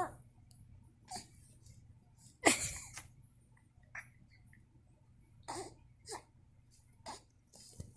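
A three-month-old baby making short grunts and breathy little vocal sounds while mouthing a hand, with one louder, sharper cry-like sound about two and a half seconds in.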